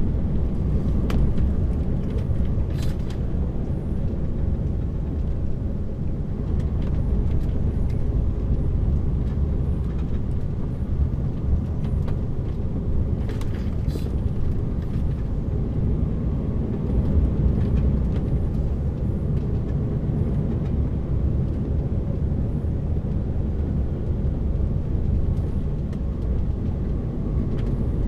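Lorry engine and road noise heard from inside the cab while driving steadily, a continuous low rumble. A couple of brief higher clicks or scrapes cut through it, about three seconds in and again near the middle.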